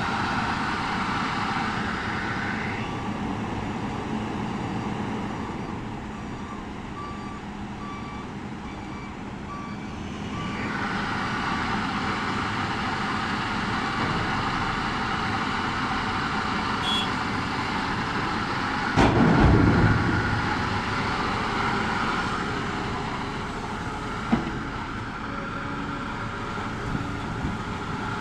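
Hidromek 390 excavator's diesel engine running steadily, with a repeating alarm beeping from about three to ten seconds in. A single heavy thump about nineteen seconds in.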